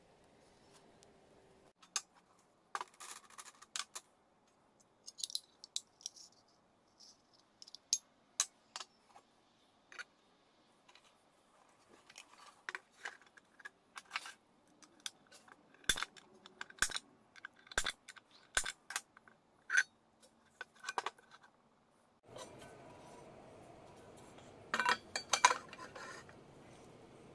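Irregular clinks and clicks of small metal parts being handled and fitted: steel angle brackets, bolts and nuts knocking against an angle grinder's gear head and a frying pan. A quick run of louder clinks comes near the end.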